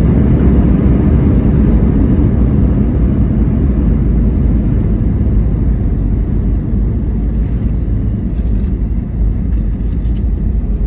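Airbus A320-232 with IAE V2500 engines on its landing rollout: a loud, steady low rumble of engines and runway noise that eases slightly in the second half as the aircraft slows, with a few faint rattles near the end.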